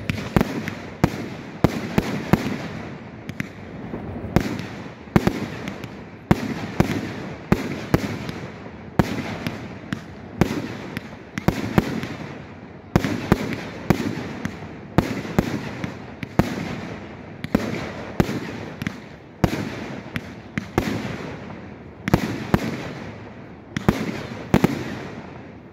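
Aerial fireworks bursting in quick succession, one sharp bang after another about one and a half times a second, with the noise of the bursts and their echoes filling the gaps between.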